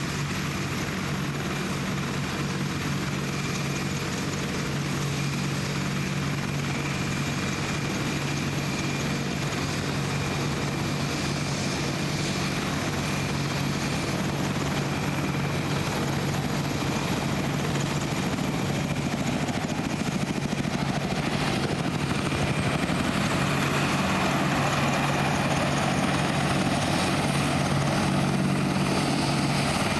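Boeing CH-47 Chinook tandem-rotor helicopter flying close, its rotors and turbine engines making a steady low drone over a dense rushing noise. The sound grows louder in the last third as the helicopter comes nearer.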